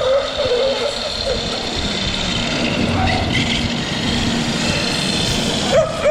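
Traxxas 8S electric RC truck driving, its motor giving a steady whine over wind noise. A dog whines at the start and yelps once near the end.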